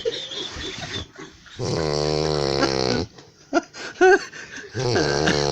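A person snoring: two long, deep, droning snores, one starting about one and a half seconds in and another near the end, with short squeaky whistles between them.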